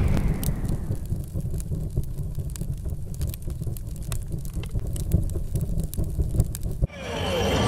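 Logo-intro sound effect: the fading tail of an explosion boom settling into a low rumble with scattered crackles, like burning embers. Near the end it cuts off suddenly and music begins to swell in.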